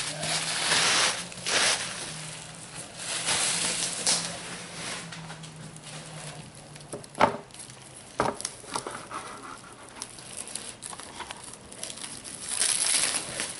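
Bubble wrap and plastic packaging film crinkling as packed parts are handled and unwrapped. There are two sharp knocks about seven and eight seconds in, and a louder spell of crinkling near the end.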